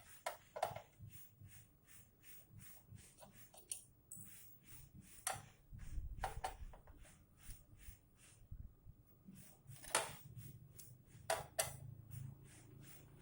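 Irregular small clicks and taps of hand tools working at a circuit board, with a few louder knocks, as a glued-down burnt component is being worked loose.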